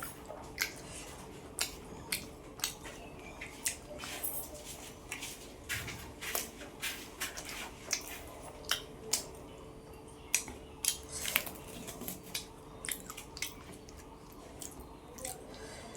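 A person chewing food with open-mouthed eating sounds: irregular wet clicks and smacks, a few every second.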